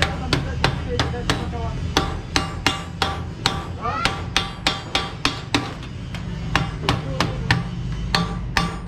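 Hammer striking sheet metal in a steady run of ringing blows, about three a second, over a steady low hum.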